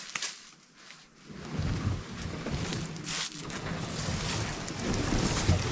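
Small catamaran's hulls dragged through brush and over a sandy bank: scattered crackles of twigs and leaves at first, then, from about a second and a half in, a steady rumbling scrape.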